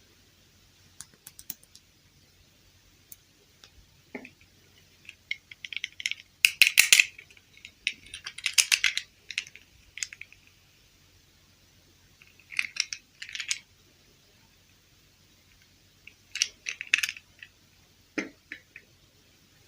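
Small hard plastic pieces clicking and rattling against each other as they are handled, in several short flurries with pauses between them; the loudest flurries come about a third and halfway in.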